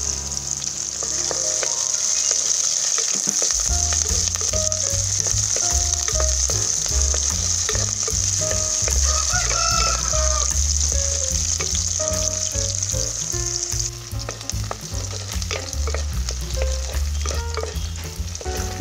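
Shallots, garlic, dried red chillies and curry leaves sizzling in hot oil in an earthen pot, stirred with a spatula. The steady hiss of the frying fades about two-thirds of the way through.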